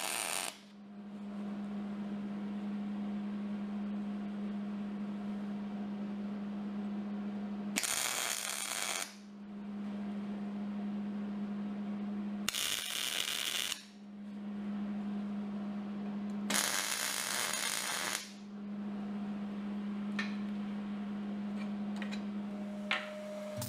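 Hobart 210 MVP MIG welder laying tack welds on steel: short bursts of arc crackle, one ending about half a second in and three more of a second or so each, with a steady hum between them. A few light clicks near the end.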